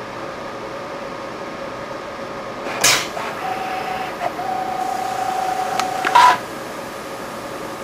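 Epson SCARA robot screwing a cap onto a bottle: a short hiss of air from the pneumatic three-jaw gripper about three seconds in, then a steady motor whine for about three seconds as the spindle turns the cap down, ending in a second short hiss of air from the gripper. A steady background hiss runs underneath.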